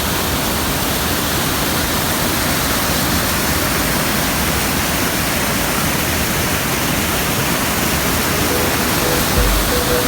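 Waterfall rushing, a loud, steady, even roar of falling water. Faint music comes in near the end.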